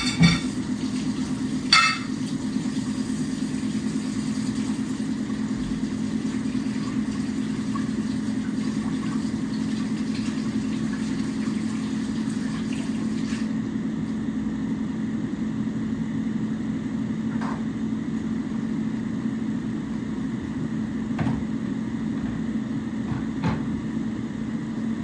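Air fryer running with a steady fan hum while it cooks chicken. A couple of sharp clicks of kitchen clatter come in the first two seconds, and a few fainter ones later.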